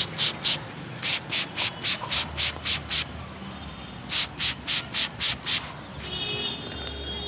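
Hands rubbing briskly over hair and scalp during a head massage, about four hissy strokes a second in three quick runs with short pauses between.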